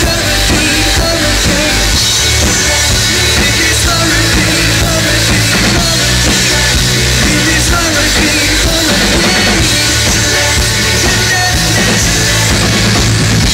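Live rock band playing loud through a club PA: drum kit, amplified instruments and a male lead singer.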